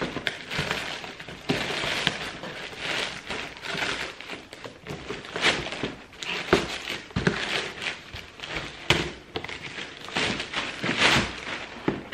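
Plastic mailing bag being torn open and handled: irregular crinkling and crackling with sharp snaps as the plastic is pulled apart and the packaging inside is drawn out.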